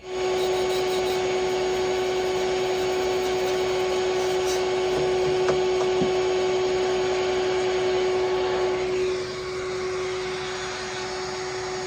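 Vacuum cleaner running steadily with a high, even hum, sucking caked debris off a plugged refrigeration condenser coil. It starts abruptly and drops a little in level about nine seconds in.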